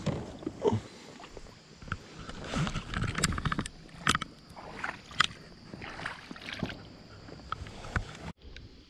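Irregular knocks, taps and clatter of gear being handled on a plastic fishing kayak. It cuts off abruptly near the end to a quieter background.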